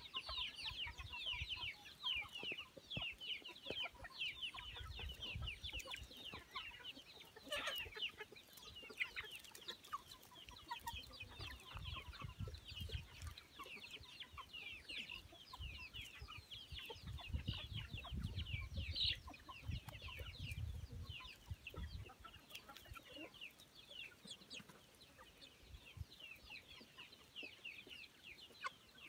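A flock of half-grown chickens peeping and cheeping nonstop, many short falling calls overlapping. Low rumbling comes and goes in the middle stretch.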